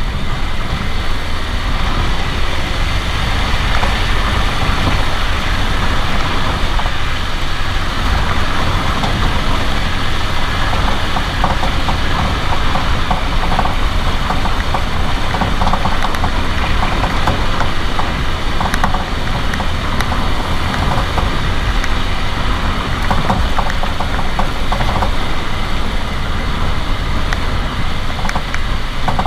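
A 2017 Renault Duster 4x4 with a steady low rumble and repeated short knocks from the passenger-side front suspension. The knocking persists even with new strut mount kits (bump stops, boots, top mounts), stabiliser link and sway-bar bushings on both sides.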